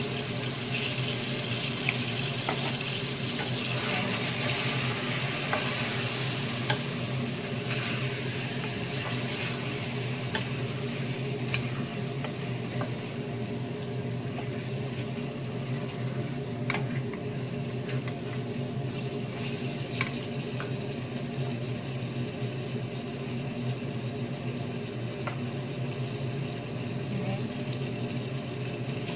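Pieces of meat sizzling with spices in a stainless steel pot as they are stirred with a wooden spoon, with a few sharp knocks of the spoon against the pot.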